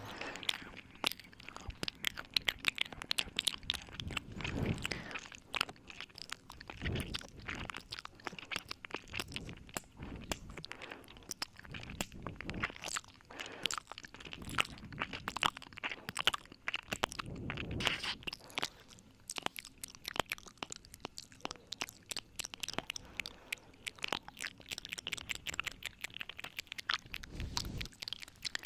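ASMR ear-eating mouth sounds close to the microphone: a dense run of wet clicks, smacks and nibbling noises, with a few deeper, muffled swells.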